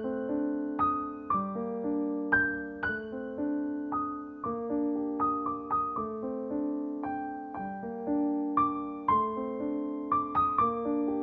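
Background music: a soft piano melody of single struck notes, each fading before the next.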